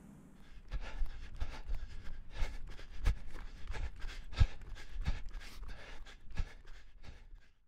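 A person running on foot: footsteps thudding about three times a second, with hard breathing.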